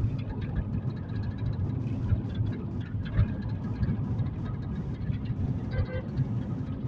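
Cabin noise of a moving car: a steady low road and engine rumble with faint rattles from the interior.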